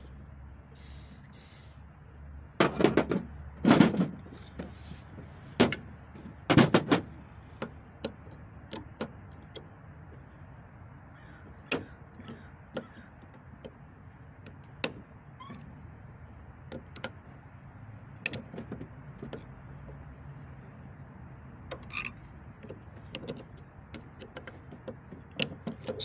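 A short aerosol spray of penetrating lubricant about a second in, then metal clicks and knocks as pliers work the retaining clips out of a rusty driveshaft U-joint. The loudest knocks come a few seconds in, and smaller scattered clicks follow.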